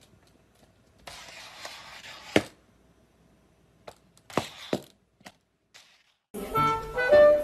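A cat's plastic cone collar scraping and knocking against a tiled floor and wall: a brief rustling scrape, then a few sharp knocks. Music starts near the end.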